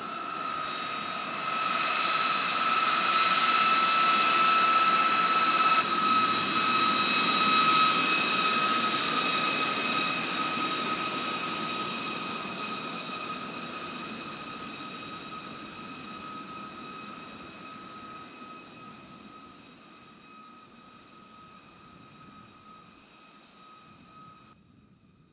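A B-52H bomber's eight turbofan engines at low power during the landing rollout: a steady high whine over a broad rushing noise. It grows loud in the first few seconds, then fades away as the bomber rolls off.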